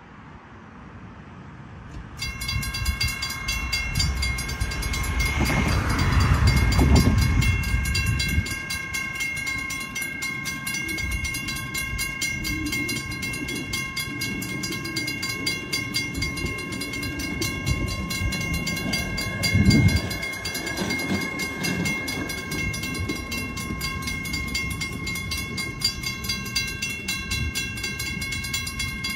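Two WCH first-generation M-Bell electronic crossing bells start ringing about two seconds in and keep up a rapid, steady dinging as the grade crossing activates. Low rumbles swell underneath around six seconds in and again briefly near twenty seconds.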